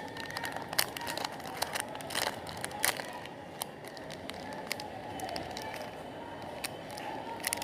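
Crinkling of chocolate and candy wrappers being handled and opened: irregular sharp crackles, busiest in the first three seconds and sparser after.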